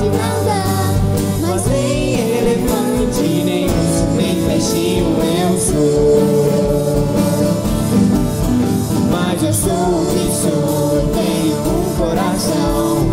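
Two girls singing a children's worship song in Portuguese, backed by a live band with guitars and drums.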